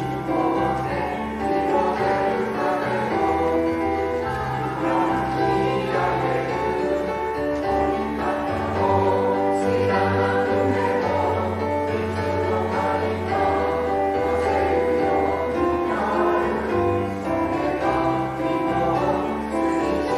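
A choir singing together in harmony, holding long sustained notes over a steady low line.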